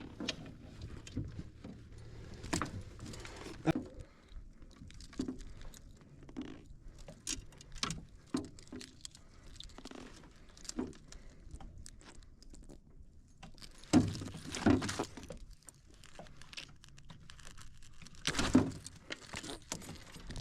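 Scattered clicks, jingles and knocks of fishing gear being handled while a landed blue catfish is gripped, with louder bursts of handling about two-thirds of the way through and again near the end.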